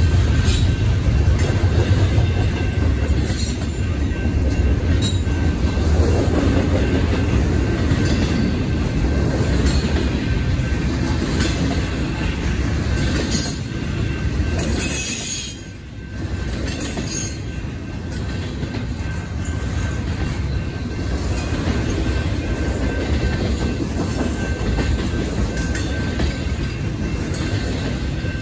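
Double-stack intermodal well cars rolling past on the rails: a steady low rumble of steel wheels with clicking over the rail joints. A few brief high squeals from the wheels come through, and the noise dips briefly about halfway through.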